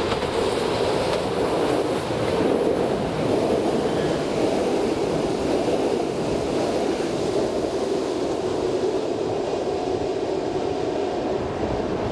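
Double-deck electric multiple unit passing close underneath, a steady rolling noise of wheels on rail.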